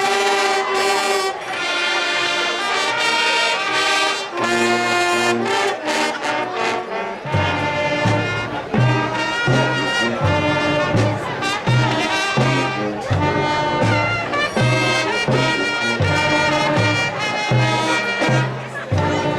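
High school band playing brass music: held chords in the horns, joined about seven seconds in by a low bass line pulsing in an even rhythm.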